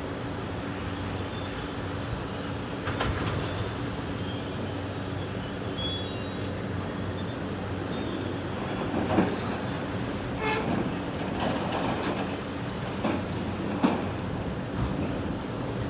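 Heavy diesel demolition machinery running steadily, a tracked excavator working with a water truck beside it, with scattered crunches and clanks of brick and steel coming down, the sharpest about nine and fourteen seconds in.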